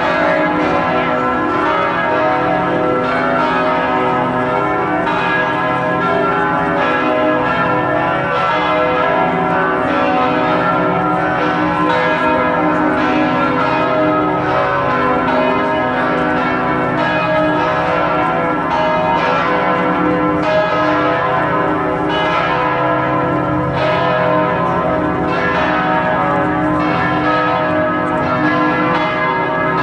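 Bells of Notre-Dame Basilica in Montreal ringing together, several bells struck in quick overlapping succession so their tones ring on into one another without a break.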